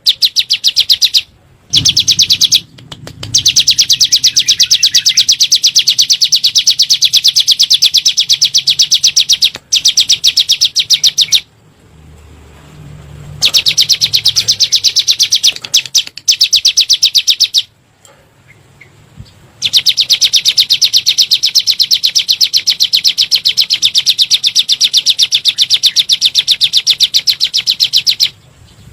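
Ciblek gunung, a mountain prinia, singing its rapid-fire 'nembak' song: long bouts of very fast, high repeated notes, broken by a few short pauses.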